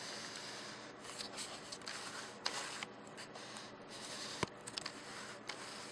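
Faint rubbing and handling noise with a few light clicks, from hands working the controls of a Sony HDR-CX405 camcorder while changing a menu setting.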